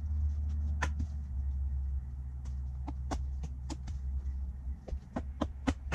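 Footsteps on dry fallen leaves: irregular crisp crunches and clicks, coming closer together in the last couple of seconds, over a steady low rumble.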